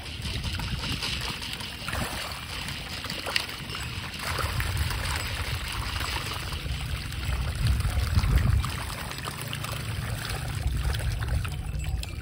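Water splashing and churning as a dense school of orange-tail carp thrash at the surface, with many small splashes. A low rumble rises about four seconds in and is loudest around the middle.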